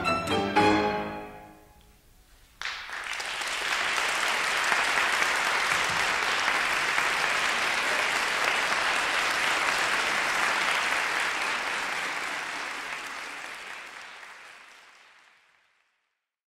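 A piano trio of violin, cello and piano plays the last emphatic chords of a piece, which ring away into a moment of silence. About two and a half seconds in an audience breaks into steady applause, which fades away near the end.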